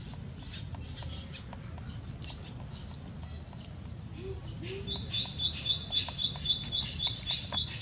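Dry leaves and twigs ticking and rustling as a baby macaque moves and grabs at a leafy shrub. About five seconds in, a bird starts a rapid, even chirping, three or four high notes a second.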